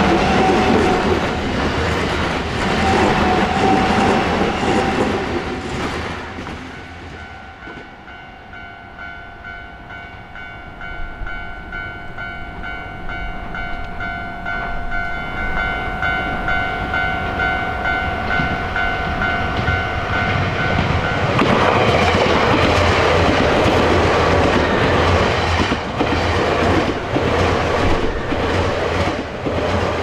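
An electric train passing over a level crossing, its wheels clattering over the rail joints. As it dies away, the crossing's warning bell is heard ringing in even, repeated strokes. About 21 seconds in, another train rumbles and clatters through, drowning the bell.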